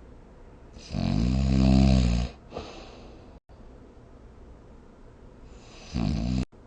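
A person snoring: one long, loud snore about a second in, its pitch dipping and then rising, followed near the end by a shorter snore that cuts off abruptly.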